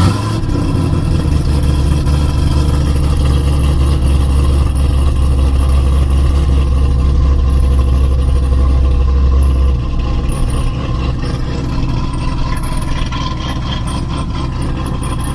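Chevy SS's cammed 6.2 L LS3 V8, with long-tube headers and the exhaust in Tour mode, starting up. It flares as it catches, then runs at a steady high idle and settles to a lower, quieter idle about ten seconds in.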